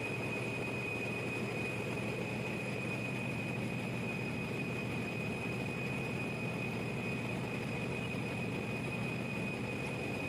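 Steady running noise of a large 18-megawatt generator engine, an even drone with a constant high whine over it. The engine is kept running while its oil filter is changed.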